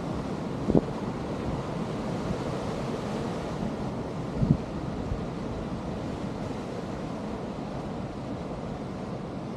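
Ocean surf breaking and washing over rocks with a steady rush, under wind noise on the microphone. Two brief low thumps come through, about a second in and again around the middle.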